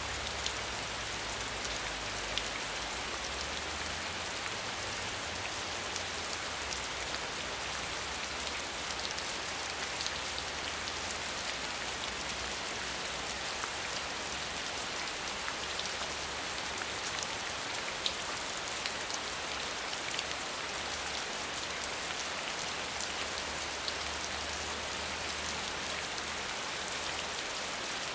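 Steady rain falling on the ground: an even, dense hiss with occasional sharper ticks of single drops.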